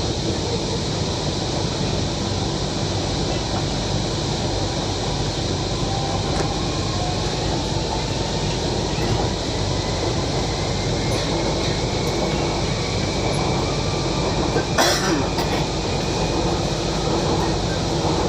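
Cabin interior of a Kochi Metro train running between stations: a steady running rumble with a constant hum. One short, sharp click or knock comes about fifteen seconds in.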